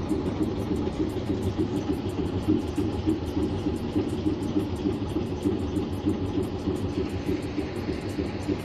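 Diesel locomotive engine idling steadily, a continuous low rumble with no change in speed.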